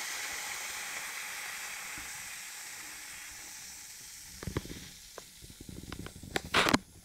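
Aluminium foil reacting with concentrated sodium hydroxide solution, fizzing and hissing as hydrogen bubbles off; the hiss slowly dies away. From about four seconds in there are scattered sharp clicks, with a louder crackle near the end.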